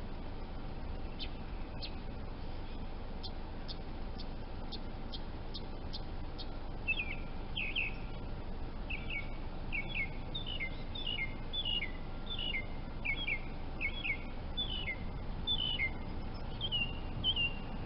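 A small bird calling. A few faint, short high ticks are followed, about seven seconds in, by a steady series of quick, high, downward-slurred chirps, roughly two a second.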